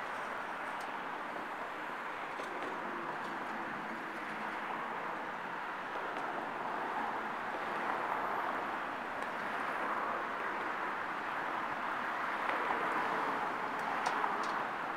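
Steady, distant noise of a New York subway train pulling away from a station and approaching along an open cut, blended with city background hum and growing slightly louder in the second half.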